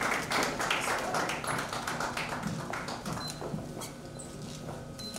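Audience applauding, the clapping thinning out and dying away over the first few seconds.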